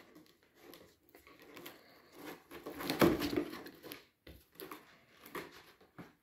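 Cardboard box being worked open by hand: scattered scrapes, rustles and peeling of tape and cardboard, loudest about three seconds in.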